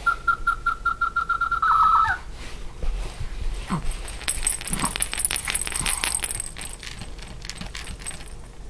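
Electronic sound effect from a plush monkey crib toy: a rapid, evenly pulsed high chirping beep for about two seconds. It is followed by several seconds of irregular rattling clicks and rustling as the toy is handled.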